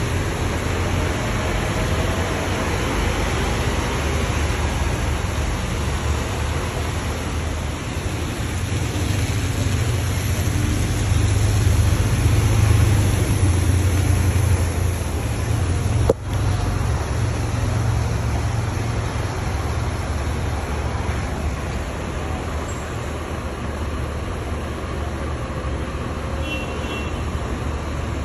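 Bus engines running and the low rumble of buses moving around a bus interchange, swelling about halfway through as a double-decker bus pulls in, with a single sharp click shortly after.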